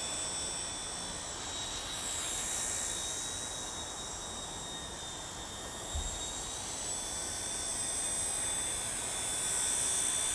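WLtoys V911S micro RC helicopter hovering, its tiny electric motors and rotors giving a steady high-pitched whine that swells and fades as it drifts. A brief low bump comes about six seconds in.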